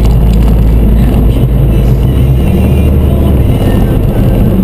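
Mini Cooper S on the move: a loud, steady, deep engine and road drone, its low note shifting a little partway through.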